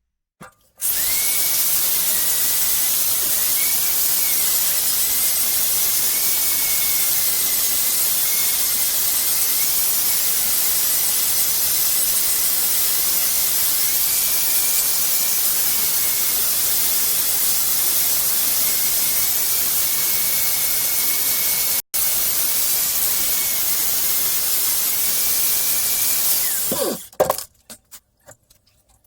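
A power tool cutting steel angle iron, running continuously with a strong high hiss and a steady whine that wavers slightly in pitch under load. It starts about a second in, cuts out for an instant about two-thirds of the way through, and winds down near the end, followed by a few metallic clanks.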